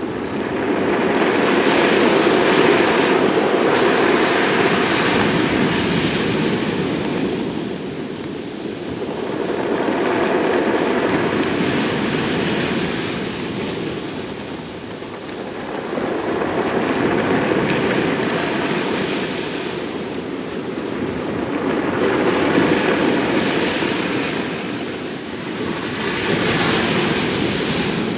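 Sea waves breaking on a pebble beach, the surf swelling and drawing back five times, a few seconds apart, with wind noise under it.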